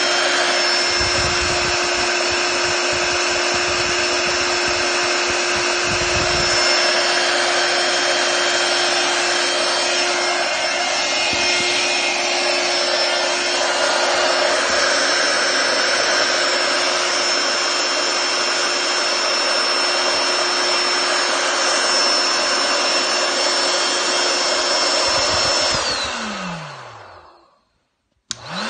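WALLE electric air pump running steadily, its motor and fan blowing air into an inflatable beach ball. Near the end it is switched off and winds down to silence, then switched on again and spins back up.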